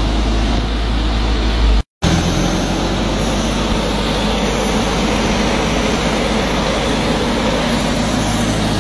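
Biogas-fuelled generator engine running steadily, heard up close. The sound cuts out for an instant a little under two seconds in, then carries on unchanged.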